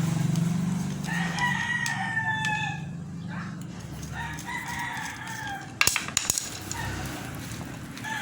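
A rooster crowing in long, slightly falling calls, more than once. A short cluster of sharp metallic clanks comes about six seconds in, and a low hum sits under the first two seconds.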